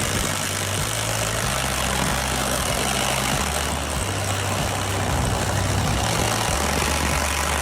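Cordless drill spinning a 65 mm concrete hole saw into a masonry wall, a steady grinding drone as the saw cuts.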